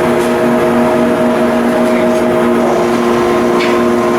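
Machinery running steadily, a constant drone with several held tones, with a faint tick about three and a half seconds in.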